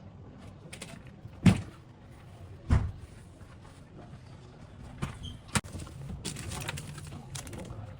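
Two heavy thuds about a second apart, like something knocked or set down hard, then a few lighter clicks and a brief rustle.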